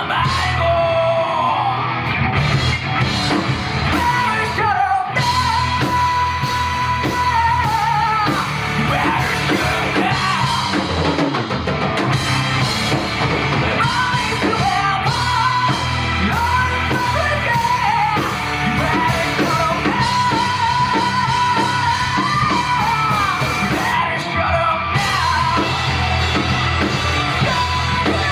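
Live rock band playing, drums, electric guitar, bass and keyboard, under a lead vocalist singing and holding long, high notes.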